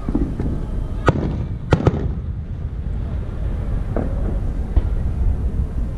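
Aerial fireworks bursting: a string of sharp bangs over a continuous low rumble. The loudest come about a second in and as a close pair just before two seconds, with another about four seconds in.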